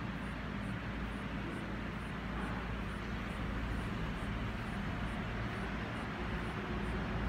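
Steady low hum with a background rumble, plus faint, even ticking about twice a second.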